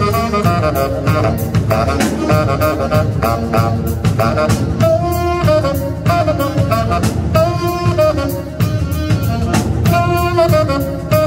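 Live jazz band: several saxophones playing a melody with long held notes, over a drum kit keeping a steady beat.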